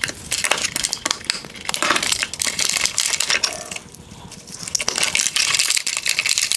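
Plastic wire-harness clips being pulled off a plastic headlight housing: a rapid run of clicks, snaps and rattling of plastic and wires, with a short lull about four seconds in.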